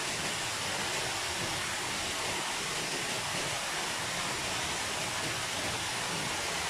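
Waterfall: a steady rush of water falling over rocks, an even hiss with no breaks.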